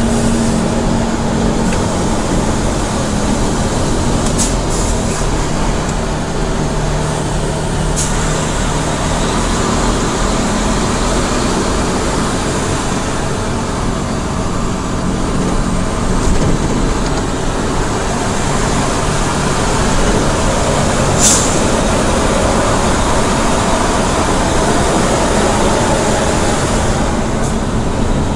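Mitsubishi Fuso heavy truck's diesel engine running with road noise, heard from inside the cab while driving; a steady rumble whose pitch shifts a little. A few brief, sharp high sounds cut through it about 4, 8 and 21 seconds in.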